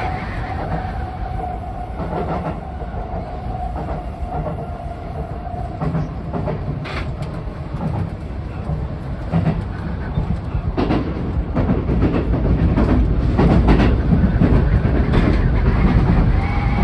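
Sotetsu 20000 series electric train running, heard from the driver's cab: a steady running rumble with a faint whine over the first few seconds, then louder clattering of the wheels over rail joints and points in the second half.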